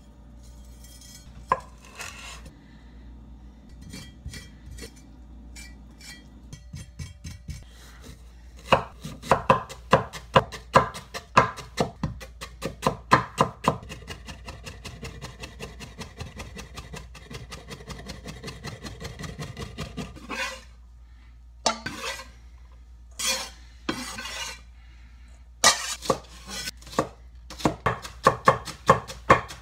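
Cleaver blade knocking on a wooden cutting board as ginger is minced: a few light, scattered knocks at first, then a long run of rapid chopping strokes, and after a few short pauses another rapid run near the end as green onions are cut.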